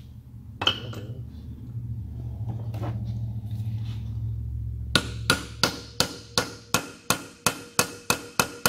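Small hammer tapping a deep socket to drive a new valve stem seal down onto the valve guide of an LS cylinder head. After a single knock and a low hum, a quick even run of sharp ringing metallic taps, about three a second, starts about halfway through.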